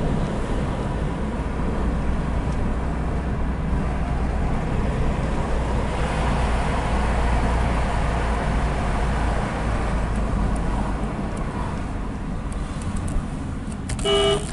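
Road and engine noise inside a moving Nissan Primera's cabin, a steady low rumble that eases off about two-thirds of the way through as the car slows. Near the end a short pitched beep sounds once.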